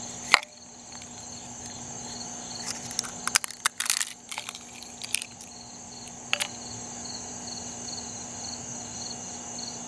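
Brown eggshell being pulled apart and crackling, with clicks of shell against a ceramic bowl: one sharp tap about a third of a second in, a dense run of crackles from about three to four and a half seconds, and a few more near five and six and a half seconds. Steady, evenly pulsed insect chirping underneath throughout.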